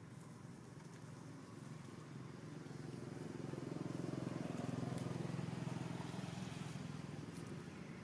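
A motor vehicle engine passing by. It grows louder over a few seconds, is loudest around the middle, then fades.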